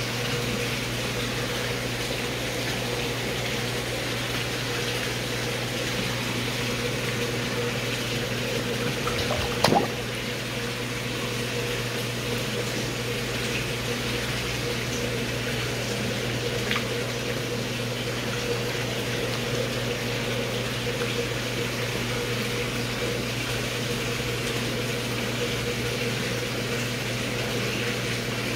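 Indoor pond's water circulation running: a steady rush of moving water over a constant low pump hum. One short knock about nine and a half seconds in.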